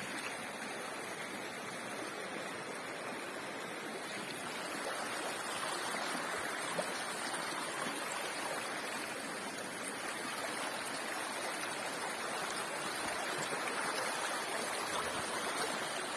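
A rocky mountain river rushing steadily over stones.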